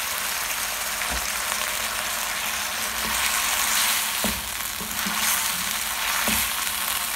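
Chicken cubes sizzling in a hot wok in freshly added chili sauce, soy sauce and vinegar, stirred with a wooden spatula. The spatula gives a few light knocks against the pan.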